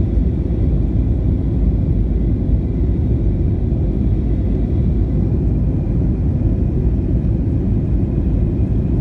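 Steady low rumble inside the cabin of a Boeing 737-300 climbing out after take-off: its CFM56-3B2 turbofan engines and the rush of air along the fuselage, with faint steady whining tones above the rumble.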